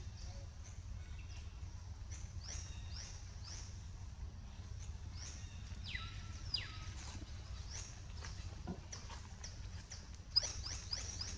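Short, high-pitched animal chirps repeating about once or twice a second, some sliding down in pitch, with a quick run of them near the end, over a steady low rumble. A single sharp click comes near the end.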